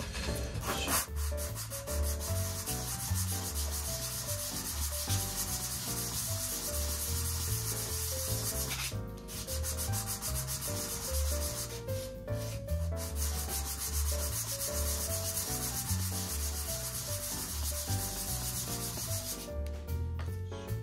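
Aluminium step-up ring, set in a small wooden jig, rubbed back and forth on 400-grit wet/dry sandpaper: a steady scratchy sanding that smooths its ground-down face. There are short pauses about 9 and 12 seconds in. Background music plays underneath.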